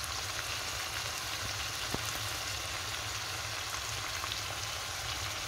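Chunks of liver in a tomato and oil sauce sizzling steadily in a frying pan, an even frying hiss with faint scattered crackles. One sharper tick comes about two seconds in.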